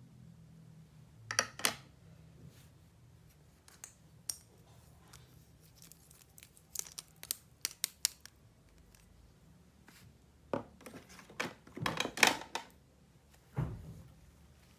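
Toy packaging being opened by hand: irregular snips, tearing and crinkling of plastic and cardboard in short clusters, busiest and loudest about three-quarters of the way through, with a dull thud near the end.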